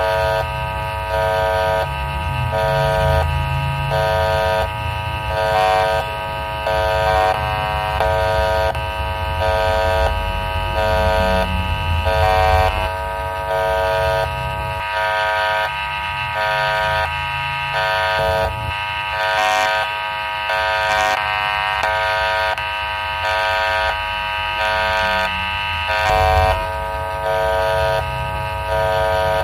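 Electronic railway level-crossing alarm sounding, a loud multi-tone signal repeating in an even pattern just under once a second.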